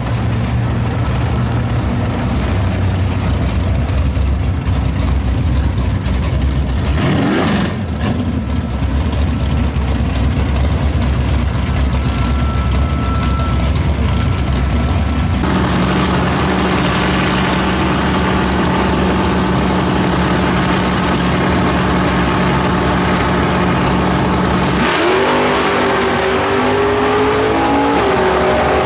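Drag-race muscle car engines running loud and steady, with a deep, lumpy note. Near the end a car launches hard, its engine pitch rising steeply and stepping up once.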